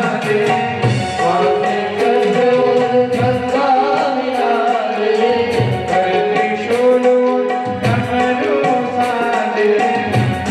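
Hindu devotional aarti to Shiva, a voice singing over held instrumental tones with tabla accompaniment, the drum giving a deep bass stroke every second or two.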